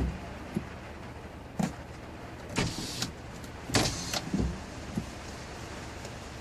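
Steady rain falling, broken by several short, irregular knocks and swishes, the loudest about four seconds in.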